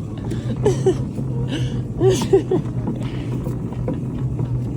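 Steady low vehicle hum, with two short indistinct voice-like sounds about a second and two seconds in.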